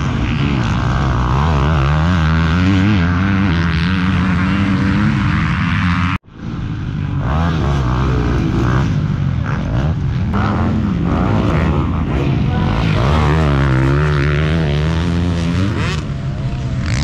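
Motocross dirt bike engines revving, rising and falling in pitch again and again as the bikes accelerate and back off through the turns. The sound breaks off briefly about six seconds in.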